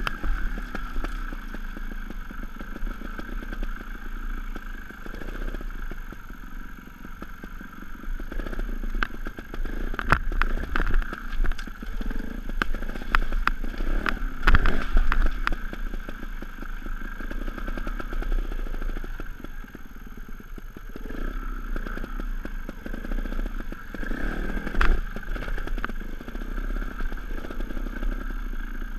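Sherco 290 ST trials motorcycle's two-stroke engine running at low revs, its speed rising and falling with the throttle. Sharp knocks and clatter come from the bike over rocks, loudest about halfway through.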